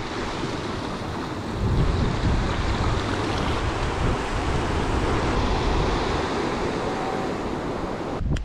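River rapids rushing over rocks, a steady dense water noise, with wind buffeting the microphone in low gusts.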